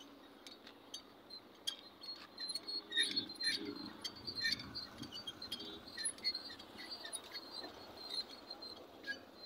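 Faint, irregular metallic clicks and squeaks as the hand crank on a tractor-mounted road sweeper's threaded adjuster is turned, opening and lowering the sweeper.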